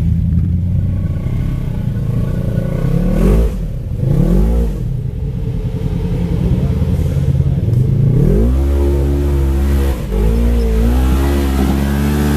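Side-by-side UTV's engine revving in short bursts as it works through deep mud ruts, then held at high revs for the last few seconds with brief dips.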